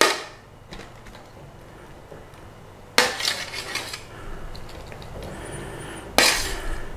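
Metal tongs and a metal tray clanking as chicken thighs are placed into a slow cooker: three sharp metallic clanks, one at the start, one about three seconds in and one near the end, each ringing briefly, with quieter handling and scraping between them.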